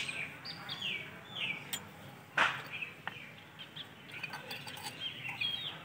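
Small birds chirping in short, repeated calls that slide downward in pitch. A single sharp clink of a metal spoon comes about two and a half seconds in.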